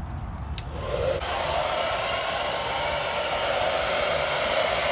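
Handheld hair dryer switched on about half a second in, its motor spinning up and then blowing steadily, used as a heat gun to melt crayons on a poster board.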